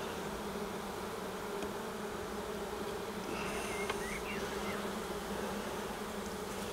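Steady humming of a honeybee colony in an opened hive.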